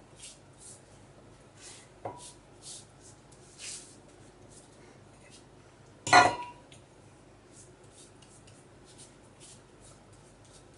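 Pastry brush swishing melted butter over sheets of strudel dough, with a light tap on a stainless steel bowl about two seconds in and a loud ringing clank about six seconds in as the bowl is set down on the counter.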